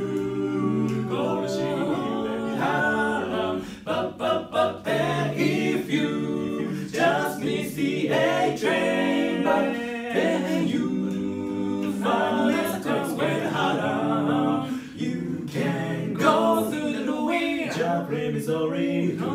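Male barbershop quartet singing a cappella in close four-part harmony, with a run of short, clipped syllables about four seconds in.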